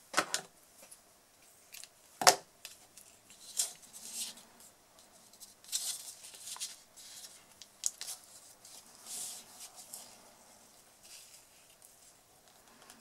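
Hands tying a bow of linen twine around a paper card: scattered light rustling and swishing of string and card stock, with one sharp click about two seconds in.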